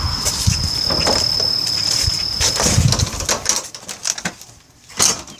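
Footsteps and camera-handling rustle of someone walking through grass, over a steady high-pitched insect tone that stops about two and a half seconds in. It then goes quieter, with one sharp knock near the end.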